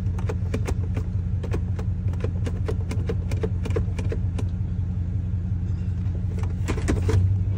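Dodge Ram 1500 pickup engine idling steadily, a low drone heard from inside the cab, with a scatter of sharp clicks over it.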